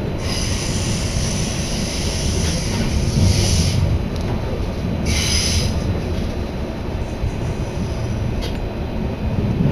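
Z20900 double-deck RER electric train running, heard from inside the carriage: a steady low rumble from the running gear, with a high-pitched metallic wheel squeal from the start to nearly four seconds in and a short squeal again about five seconds in.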